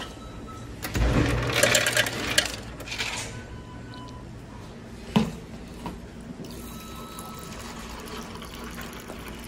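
Tea running from a beverage urn's tap into a paper cup, a steady pouring hiss through the last few seconds. It comes after a loud clattering rattle about a second in and a sharp click about halfway.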